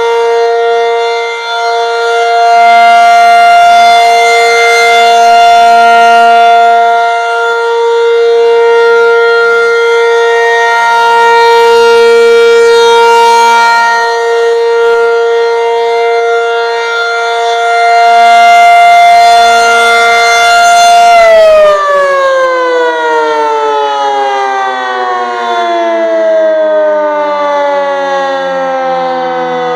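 Federal Signal 500-DH-TT outdoor warning siren sounding a steady alert tone that swells and fades every several seconds. About 21 seconds in it shuts off and winds down, its pitch falling steadily: the end of a one-minute alert signal.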